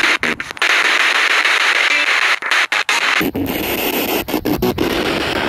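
Ghost-hunting spirit box sweeping through radio stations: loud, steady radio static broken by several brief dropouts. The static changes in tone about three seconds in.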